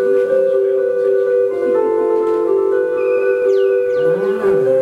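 Live improvised ambient noise music: a steady electronic drone of held tones, with higher tones entering and dropping out. Near the end a high falling glide and warbling pitch sweeps come in.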